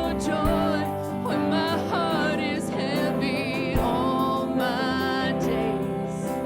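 Live church worship band playing a slow song, with sustained chords and a singer holding long notes with vibrato.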